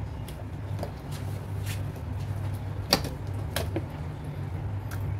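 Gloved hands squeezing and moving a wet raw lung in a stainless steel sink, with a few sharp knocks and clicks against the sink, the loudest about three seconds in, over a steady low hum.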